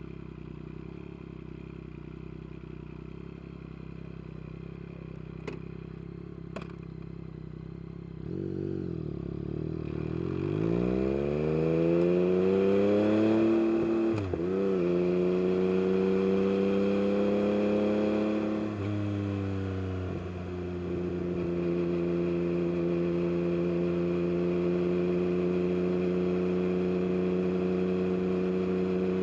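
Yamaha MT-09 SP's three-cylinder engine through an Akrapovic carbon race exhaust. It runs steady and low for about eight seconds, with two faint clicks, then revs up hard under acceleration. A gear change comes about halfway through, the revs drop again about two-thirds in, and it settles into a steady cruise.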